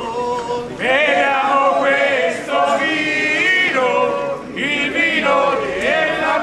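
A group of voices singing together in chorus, a folk song in sung phrases with short breaks between them.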